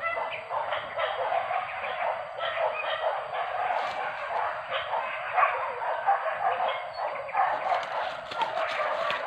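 Hunting dogs barking, several at once, their barks overlapping without a break.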